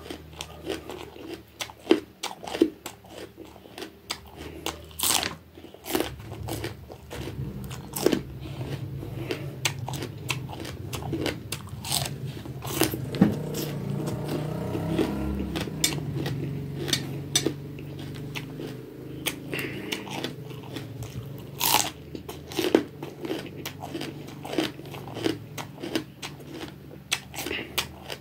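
Close-up biting and chewing of raw bitter gourd (bitter melon): many sharp, crisp crunches of the firm, ridged flesh over wet chewing.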